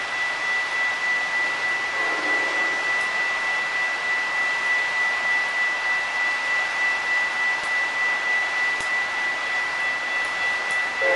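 Electronic grade-crossing warning bell sounding a steady high ring that pulses about twice a second, over the hiss of falling rain. The crossing is activated for an approaching train.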